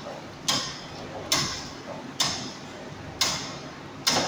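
Palm oil processing machinery running, with a sharp knock repeating a little more than once a second, each dying away briefly, over a steady running noise.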